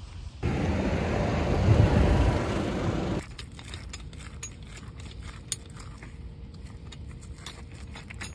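A loud rushing noise lasting about three seconds stops abruptly. Then a scissor jack is cranked by its handle, giving a run of light, irregular metallic clicks and clinks.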